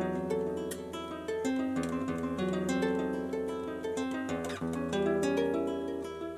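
Background music: an acoustic guitar playing a plucked arpeggio, its notes ringing into one another.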